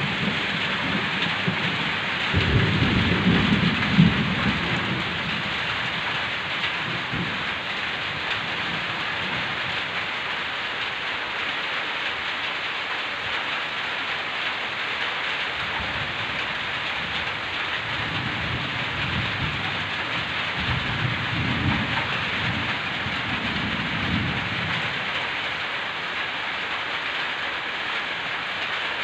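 Heavy rain falling steadily, with low rolls of thunder: one about two seconds in lasting a few seconds, and a longer stretch of rumbling from about sixteen to twenty-five seconds.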